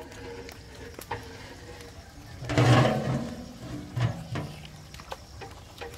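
Mutton frying in a huge metal cooking pot, stirred with a long metal ladle: a low sizzle with a few knocks of the ladle against the pot, and a louder stretch about halfway through.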